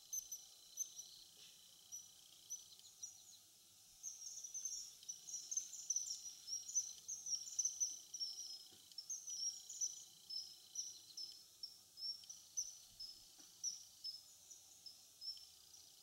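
Common kingfishers calling: a string of short, sharp, high-pitched notes, scattered at first, coming fast and close together through the middle, then thinning out to single notes again.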